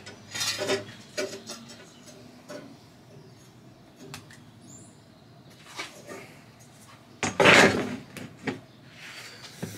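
Handling sounds on a plywood floor: scattered light knocks and rubs, then a louder scrape of under a second, about seven seconds in, as a long metal ruler is laid down and slid across the plywood.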